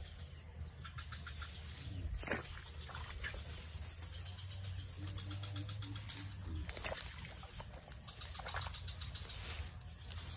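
Rustling of tall swamp grass with a few brief rustles and knocks as a person moves and crouches in it, over faint, short, repeated bird chirps.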